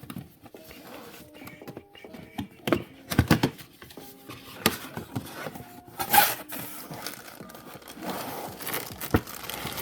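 Packaging being opened by hand: plastic wrapping crinkling and tearing among irregular knocks and clicks of the cardboard box and plastic tray, the loudest about three and six seconds in.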